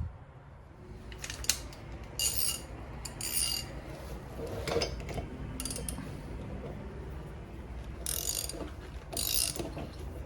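Hand ratchet wrench clicking in short spurts of about half a second, several times with pauses between, as a threaded nut is worked by hand rather than with an impact gun.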